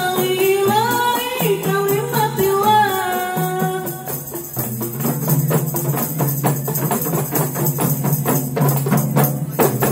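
A woman singing a sholawat melody over hand-held frame drums (rebana) and a low bass line. About four seconds in the singing stops and the drums carry on alone in a quick, even rhythm.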